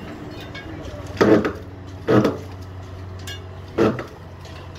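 Three heavy knocks on steel wall formwork panels, the first two about a second apart and the third a second and a half later, over a steady low hum.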